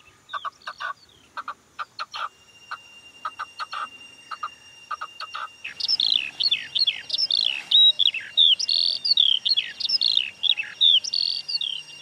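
Red-legged partridge giving short, clipped clucking calls in quick runs. About six seconds in, a crested lark takes over, singing a fast string of loud, descending whistled notes.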